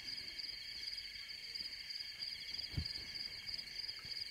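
Steady chorus of chirping crickets, a night-forest ambience, with one short low thump about two-thirds of the way through.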